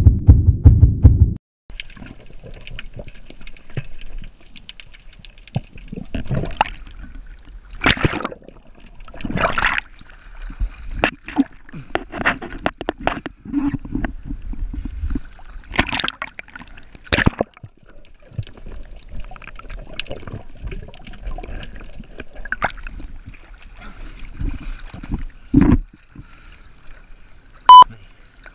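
Choppy sea water sloshing and splashing around a snorkeling spearfisher at the surface, with irregular sharp splashes. A loud low throbbing cuts off suddenly about a second and a half in, and a short loud beep sounds near the end.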